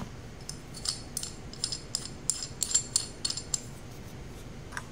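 Quick, irregular clicking and rattling of a stock tube being fitted and twisted into a Recover Glock carbine kit part, about a dozen sharp clicks bunched over a few seconds, then one softer click near the end.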